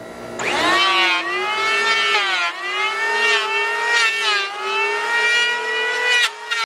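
Stanley STL630 electric hand planer running and shaving a plastic cutting board: a high motor whine that sags in pitch each time the blades bite under load and recovers between passes, about three times.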